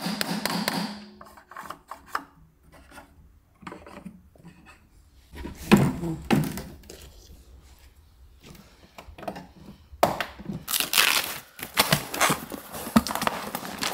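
Knocks and scrapes of a flat-pack kitchen cabinet being handled on a wooden floor, with a few loud bumps in the middle. From about two-thirds of the way in, cardboard packaging is torn and pulled open. A brief steady tone sounds at the very start.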